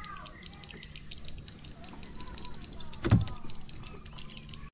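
A single sharp knock on the aluminium boat about three seconds in, heard over a steady low hum and faint bird chirps.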